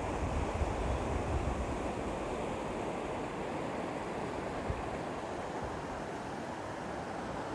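Steady rushing of the Ulúa river in flood, a fast, muddy current spilling over its banks. A low wind rumble on the microphone is strongest in the first half.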